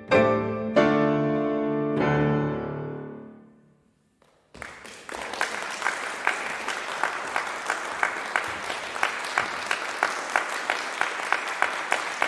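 Cello and piano play the closing chords of a classical piece, with a low cello note held under the piano, dying away to silence about four seconds in. Audience applause then starts and carries on.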